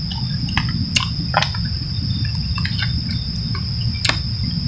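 Crickets trilling in one steady, unbroken high tone over a low rumble, with a few light clicks about one, one and a half, and four seconds in.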